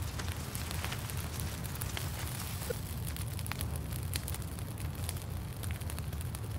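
Campfire crackling, scattered sharp pops over a steady low rumble.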